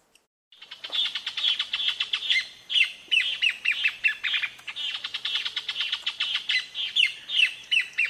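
Caatinga cacholote singing: a long, fast series of loud repeated chattering notes that starts about half a second in.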